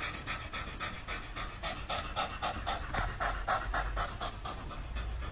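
Orange tabby cat panting with its mouth open and tongue out: quick, even breaths, about four a second.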